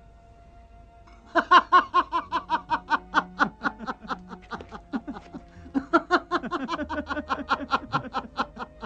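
Men laughing in quick, repeated ha-ha pulses that start about a second and a half in and keep going, with faint background music underneath.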